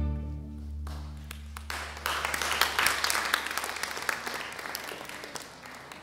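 A string orchestra's last chord rings out and fades, then about two seconds in the audience breaks into applause, the clapping thinning out near the end.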